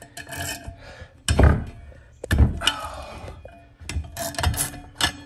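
Several sharp metal clanks and clinks from a wrench and a steel bearing puller/installer tool being worked on a motorcycle wheel hub after a wheel bearing has been seated.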